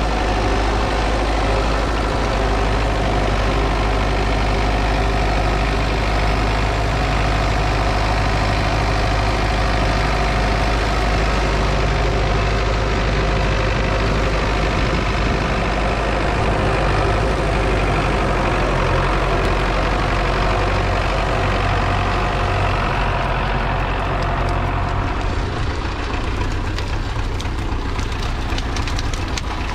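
MTZ-82 tractor's diesel engine running steadily. Near the end it eases a little, and a rapid crackle of sharp clicks comes in over it.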